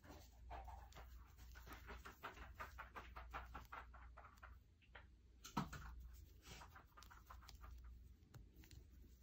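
Faint scratchy rustling of yarn being drawn through stitches with a crochet hook, in a quick run of soft strokes, with a single soft knock a little past halfway.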